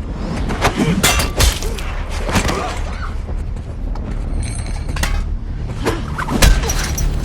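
Fight sound effects: a series of hard punch and body-impact hits, about one a second, with crashing and shattering mixed in, over a steady low rumble.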